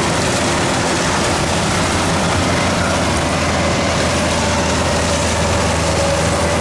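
Rice combine harvester (the 105 model) running steadily as it works the paddy: a continuous engine drone, with a faint higher whine coming in over the second half and rising slightly.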